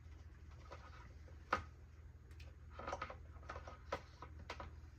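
Plastic nasal cannula and oxygen tubing being handled and pulled off a manikin: scattered light clicks and rustles, with one sharp click about a second and a half in and a cluster around three seconds, over a steady low hum.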